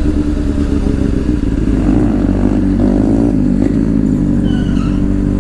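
Motorcycle engine running at a steady speed, with a brief rising note around the middle.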